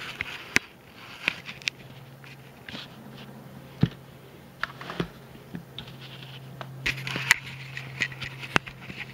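Camera being handled and set in place: irregular clicks, knocks and short scrapes over a steady low hum.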